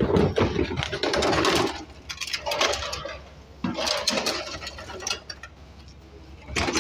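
Orange plastic fish crates being handled and stacked, clattering and knocking against each other in several bursts over a steady low hum.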